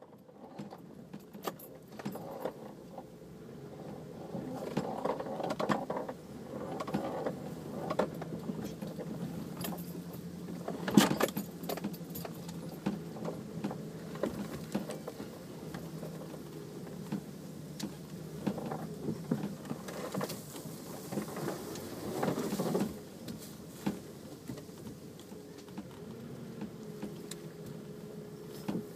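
Off-road vehicle driving over rough ground: a steady engine drone under constant loose rattling and jangling, with occasional knocks. The loudest is a sharp knock about a third of the way in.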